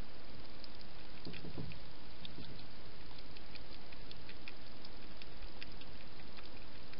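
European hedgehog feeding at a dish, making quick, small, wet clicks scattered through, with a brief low bump about a second and a half in, over a steady hiss.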